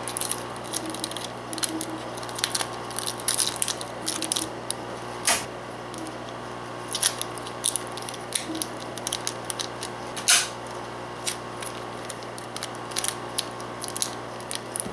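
Kapton tape being pulled off the roll and pressed onto a circuit board: an irregular run of crackles and sharp clicks, the loudest about ten seconds in, over a steady low hum.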